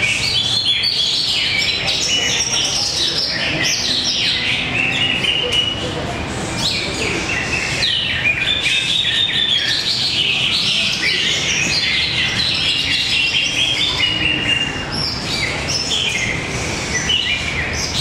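Several caged green leafbirds (cucak ijo) singing at once in competition. The result is a dense, unbroken tangle of high whistles and chirps that sweep quickly up and down in pitch.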